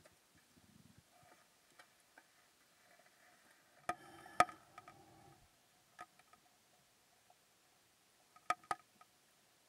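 Sharp clicks and knocks recorded underwater: a loud pair about four seconds in, a single one a couple of seconds later and another pair near the end, with faint hiss between.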